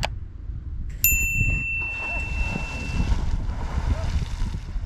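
A mouse-click sound, then a bell-like notification ding about a second in that rings and fades over about two seconds: the sound effect of a subscribe-button overlay. A steady low rumble runs underneath.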